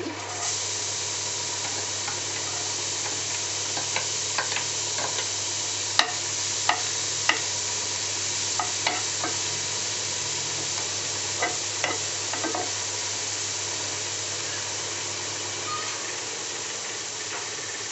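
Chopped onion sizzling steadily in hot butter in a nonstick frying pan; the sizzle jumps up as the onion goes in at the start. A metal spoon stirring clicks against the pan a dozen times, loudest about six seconds in.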